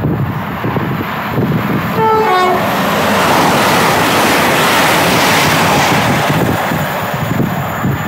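Train passing through the station at speed: a short two-note horn blast, high then low, about two seconds in, then a loud rush of wheels and air that swells and fades away.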